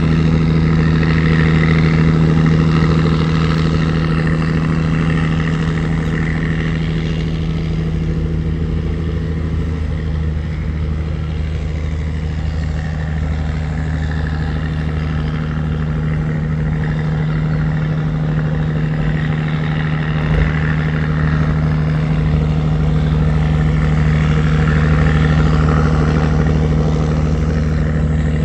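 A wooden river tugboat's engine running steadily under way, with an even, loud, low drone.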